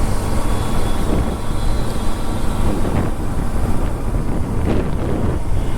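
Motorcycle riding on the road: a steady engine and road rumble mixed with wind buffeting the microphone.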